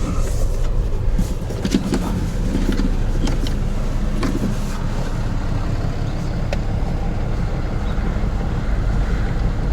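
Car engine running at a standstill, heard from inside the cabin as a steady low rumble, with a few faint clicks.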